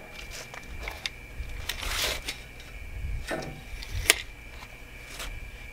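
Light clicks and knocks of steel pieces and hand tools being handled at a metal chop saw, scattered a second or so apart, with the sharpest click about four seconds in.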